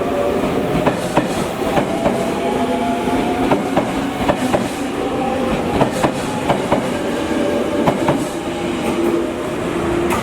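Limited express electric train pulling out of a station, its wheels clacking irregularly over rail joints and points, with steady humming tones underneath.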